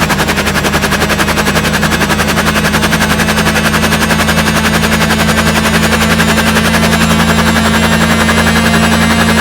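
Made-up helicopter start-up sound effect: a fast, even rotor chop of about ten beats a second over a steady low engine hum, with a high whine rising slowly in pitch as it spins up.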